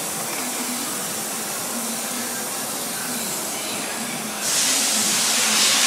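Steady background noise, then about four and a half seconds in a loud, even hiss starts abruptly and keeps going.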